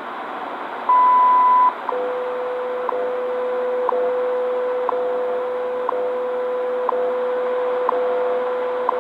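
WWV shortwave time signal heard through static on a Sony ICF-7600D radio. About a second in, one long high beep marks the top of the minute. Then a steady lower tone runs, broken by a short tick every second.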